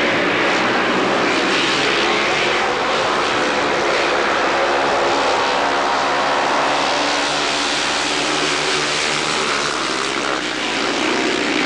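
Several speedway motorcycles racing, their single-cylinder engines running hard, with the pitch wavering up and down as they go through the bend.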